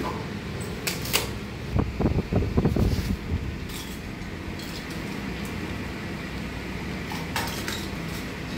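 A steady fan-like hum, with two sharp clicks about a second in, then a cluster of low knocks and rubbing lasting about a second and a half, which is the loudest part. These are thick power cables being gripped and shifted by gloved hands. A few more clicks come near the end.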